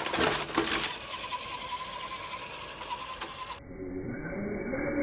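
Radio-controlled car's small electric motor and gearbox whining steadily, with scattered clicks. About three and a half seconds in, the sound cuts suddenly to a duller, muffled recording.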